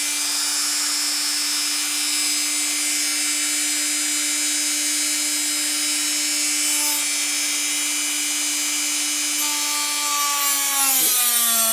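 High-speed rotary tool spinning an emery sanding drum, a steady whine. About ten seconds in, its pitch drops and the sound gets a little louder as a wooden dowel is fed against the drum to sand a flat on it.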